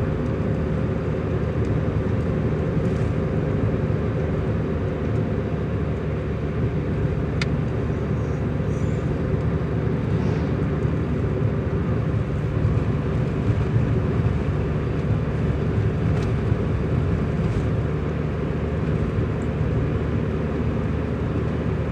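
Steady engine hum and road noise of a moving vehicle, holding an even pitch and level throughout.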